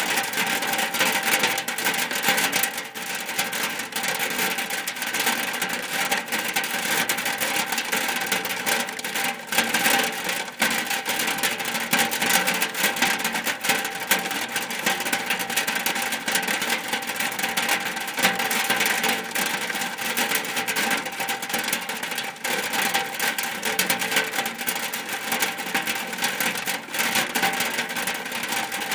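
Rain falling steadily on a shack roof: a dense, even hiss made of many small, irregular drop hits.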